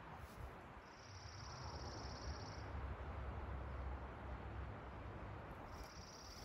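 A high, even trill about two seconds long, heard twice: once about a second in and again near the end, over a low rumble.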